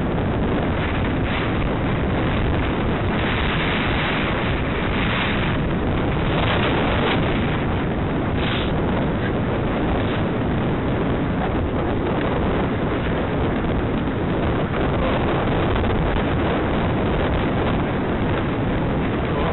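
Wind rushing and buffeting over the microphone of a camera worn by a rider on a moving horse: a steady, loud rumble with a few stronger gusts between about three and nine seconds in.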